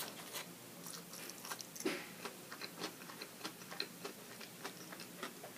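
A person chewing food with his mouth closed, close to the microphone: a string of small, irregular clicks and smacks.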